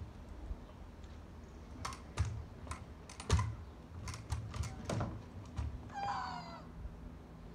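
Kick scooter knocking and clattering on asphalt in a series of sharp knocks as the rider tries to pop a wheelie from standing. About six seconds in comes a boy's short cry, falling in pitch, as he loses his balance.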